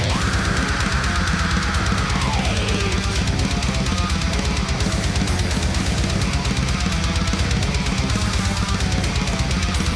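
Modern heavy-metal mix playing back: distorted guitars, bass and a drum kit with a steady kick drum. A dynamic EQ band near 3.3 kHz on the master bus ducks a harsh frequency poking out of the mix. About two to three seconds in, a tone slides down in pitch.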